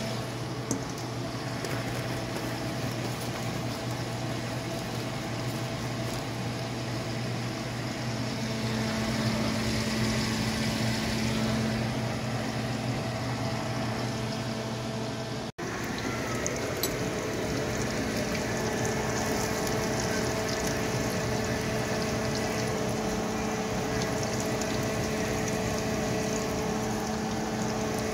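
Breaded crappie fillets frying in oil in a skillet: a steady sizzling hiss with a low steady hum beneath it. The sound breaks off for an instant about halfway.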